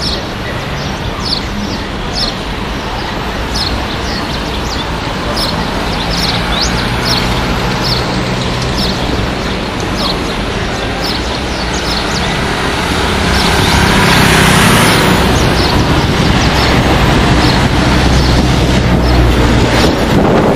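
Street traffic with a steady engine hum, swelling as a vehicle passes about two thirds of the way in. Many short, high bird chirps sound over it throughout.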